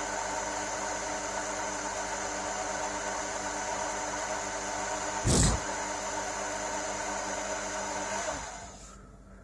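A large Chinese metal lathe running steadily, its motor and spindle giving a steady hum made of several tones. A single brief loud thump comes about five seconds in. Near the end the lathe is switched off and its sound dies away.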